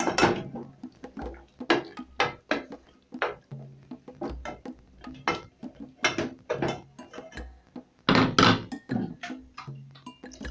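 Wooden spoon stirring beef stew in a metal cooking pot, knocking against the pot's side in irregular strokes, with a louder run of knocks about eight seconds in.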